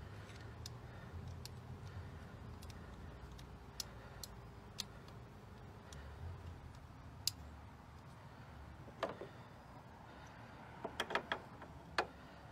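Scattered light clicks and taps from hand work on the fuel rail bolts of a Ford Focus engine as the screws are put back in. There is a louder knock about nine seconds in and a quick run of clicks near the end, over a low steady hum.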